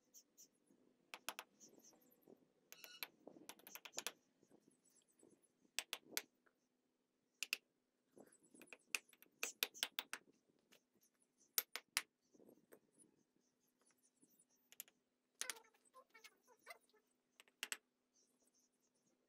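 Bricks being laid by hand in mortar: irregular sharp taps and clicks as each brick is set down and knocked into place with a small hammer, with light scraping in between.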